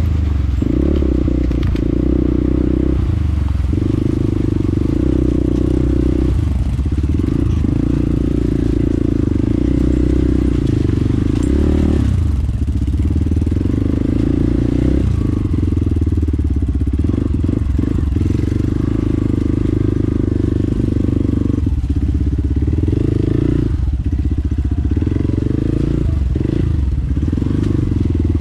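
Hero XPulse 200's single-cylinder engine running under load at low speed, the throttle opening and closing every one to three seconds.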